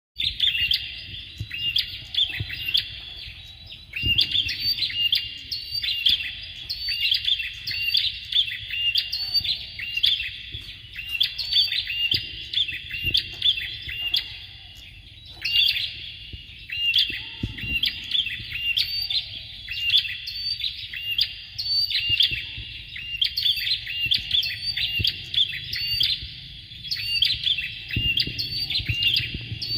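Bar-winged prinias singing: rapid, repeated high chattering notes in phrases of several seconds, broken by short pauses, over a faint low rumble.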